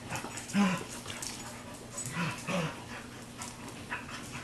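Two dogs, a German Shepherd/Chow mix and an American Bulldog mix, play-wrestling. There are three short low vocal sounds, one about half a second in and two close together around two seconds in, with faint clicks between them.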